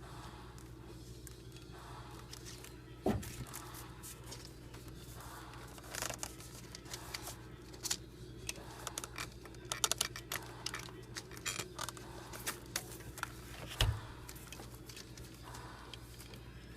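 Scattered clicks, scrapes and rustling of spark plug wires being handled and their rubber boots worked onto the terminals in a cramped engine bay, with two sharper knocks, one about three seconds in and a duller thud near the end.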